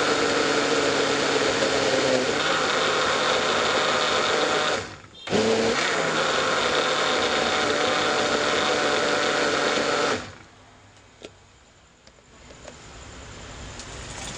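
Electric blender running at full speed with its lid held down: it cuts out for a moment about five seconds in, starts again, and stops about ten seconds in.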